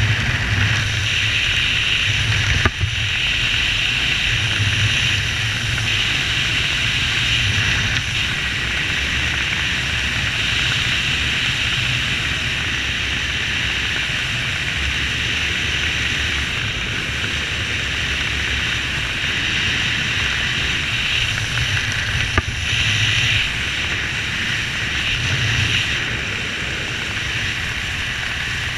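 Wind rushing over the microphone of a helmet camera during parachute canopy flight, a steady hiss over a low rumble that rises and falls a little. Two brief knocks cut through it, one a few seconds in and one later on.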